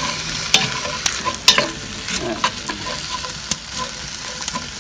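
Beef chunks, onion and celery sizzling in a hot cast iron skillet, with a steady frying hiss. A wooden spatula stirs the food and knocks sharply against the pan about once a second.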